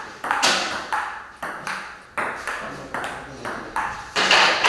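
Table tennis rally: the ball clicks off paddles and the table in quick succession, about two to three hits a second, each with a short echo in the hall.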